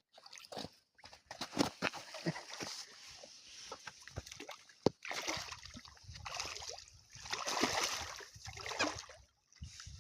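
Water splashing and sloshing in irregular surges, with scattered knocks and one sharp knock about halfway through.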